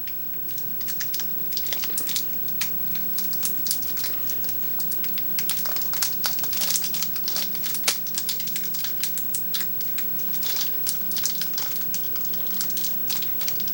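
Close, irregular crinkling and crackling from a raspberry Kit Kat bar being handled and eaten, a dense run of small crackles throughout.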